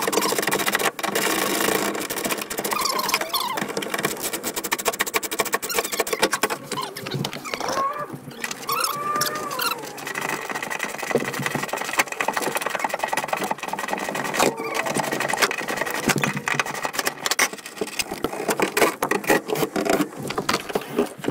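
Quick clicking, rattling and squeaking of hand tools and plastic trim as van seat-belt hardware and interior panels are unbolted and pried off.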